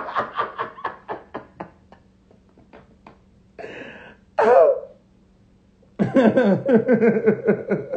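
A man laughing: a run of quick laugh pulses that trails off over the first two seconds, a sharp breath and a short vocal sound in the middle, then a fresh bout of laughter near the end.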